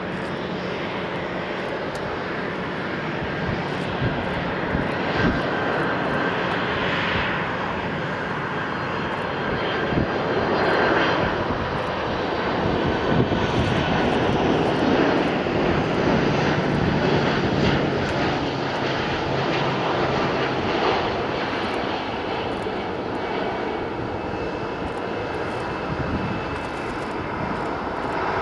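Boeing 767-300ER airliner's twin turbofan engines at approach power, a steady jet rush with a faint fan whine. It grows louder as the jet passes close by, about halfway through, then eases as the jet settles onto the runway and moves away.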